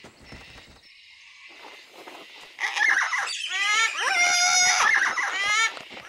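A flock of yellow-crested cockatoos calling together, a loud jumble of overlapping, pitch-bending squawks that starts about two and a half seconds in, after a faint quiet background.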